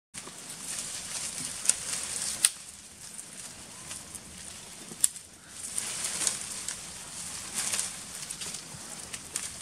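Leaves and twigs rustling and crackling, uneven and swelling, with a few sharp snaps.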